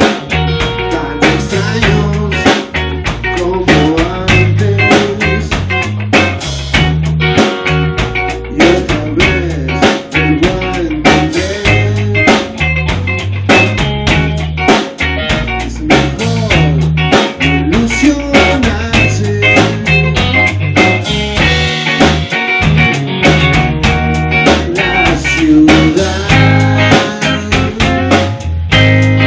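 Rock band playing a song: electric guitars, electric bass and drum kit, with a steady drum beat and a lead line that wavers in pitch.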